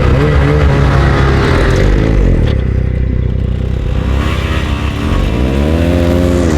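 Snowmobile engine running under way, its pitch rising as the throttle opens about four seconds in, holding, then easing off near the end.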